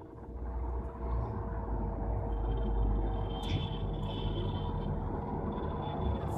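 Low, steady mechanical rumble with a constant hum, consistent with an IFB Senorita Aqua SX front-load washing machine running. A thin high whine comes in about two seconds in.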